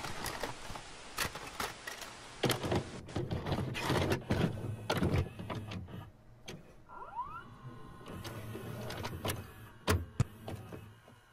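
VCR-style sound effect: a run of mechanical clicks and the whirr of a tape mechanism over hiss, with a short rising whine about seven seconds in.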